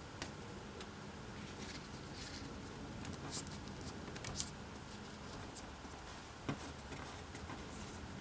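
Origami paper being folded and creased by hand on a table: faint scattered rustles and light crisp ticks of paper, the sharpest about four and six and a half seconds in, over a steady low background hiss.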